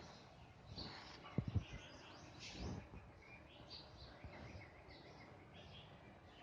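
Green parrot giving short, faint chirps and squawks over a background hiss, with a couple of sharp knocks about a second and a half in.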